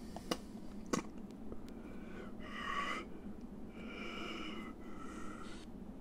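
Shoebill calls: three faint wheezy calls, each under a second, after two light clicks in the first second.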